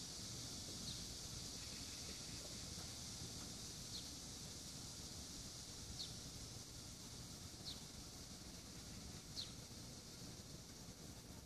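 Faint outdoor sound: a steady high hiss, with a short, high, falling chirp every two seconds or so, typical of a small bird calling.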